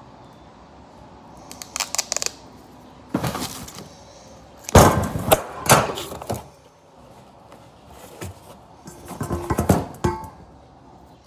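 Duct tape being pulled off the roll and torn in several short rips, with a louder knock and handling noise about five seconds in.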